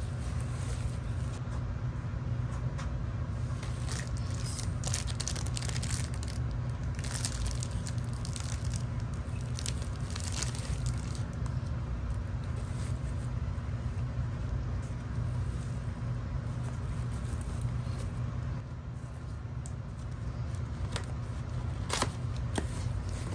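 Bubble wrap and plastic packaging crinkling and crackling in bursts as items are handled and unwrapped, with a cardboard box flap opened near the end, over a steady low hum.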